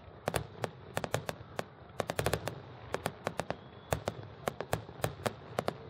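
Aerial fireworks bursting overhead: a rapid, irregular run of sharp pops and bangs, several a second, most tightly packed about two seconds in.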